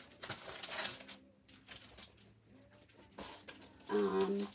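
Packs of paper and cellophane-wrapped craft supplies being shuffled and set down on a desk, with a rustling slide in the first second and softer handling after it. Near the end there is a brief low hum.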